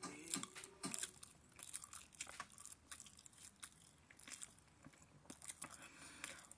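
A person chewing food close to the microphone: a run of irregular small clicks and crunches from the mouth.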